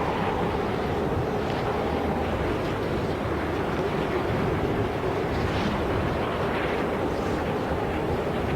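Steady rushing wind, the whoosh of air streaming past as in flight, holding an even level without gusts or breaks.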